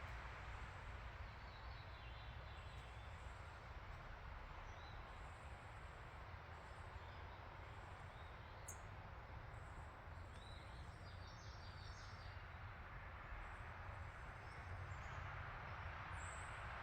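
Faint outdoor background noise with a steady low rumble, and small songbirds giving scattered faint chirps, with a short run of quick chirps a little past the middle.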